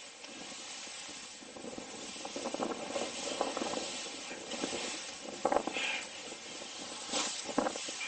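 Snowboard sliding and turning through powder snow: a steady hiss with louder scraping rushes as the board carves, the loudest about five and a half seconds in and two more near the end.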